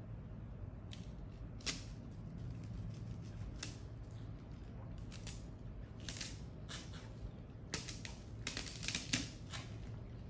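A person drinking water from a plastic bottle close to a lapel microphone: irregular swallowing gulps and clicks from the mouth and bottle, several in quick succession near the end.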